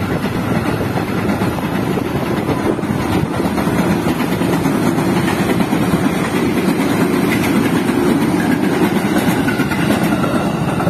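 Steady rumble of a passing electric commuter train running over its rails, mixed with the running engines of motorcycles at the level crossing.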